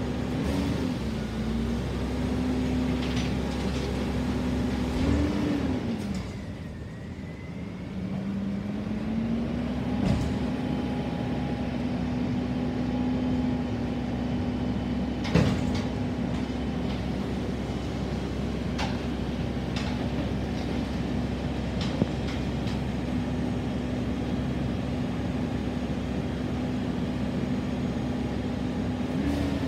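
Garbage truck's diesel engine running steadily, rising briefly in pitch twice near the start and dropping lower and quieter for a couple of seconds before settling back. A few sharp knocks come through at intervals.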